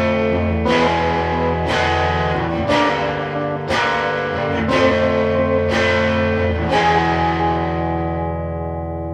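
Instrumental rock music: distorted electric guitar chords struck about once a second over a steady low note, then a last chord left ringing and slowly fading near the end.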